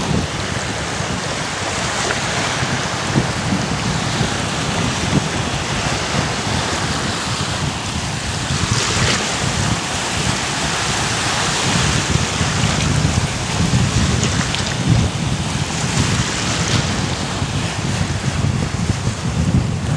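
Wind buffeting the microphone over the steady wash of small waves breaking on a beach. The hiss of the surf swells for a few seconds about halfway through.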